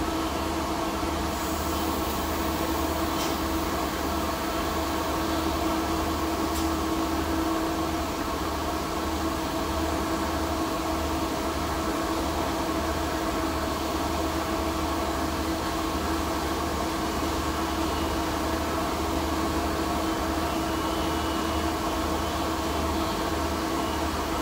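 Electric ventilation blower fan running with a steady hum and a few steady tones, over a hiss from TIG welding on a P22 alloy steel pipe.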